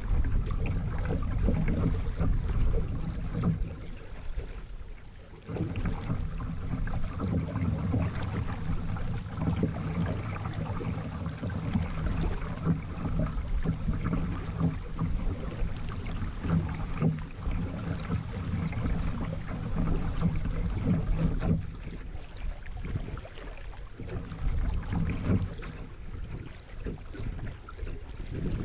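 Kayak paddling on a flowing river: paddle blades dipping and splashing, with the current rushing and rippling around the hull in a continuous, uneven wash. It drops briefly quieter about five seconds in.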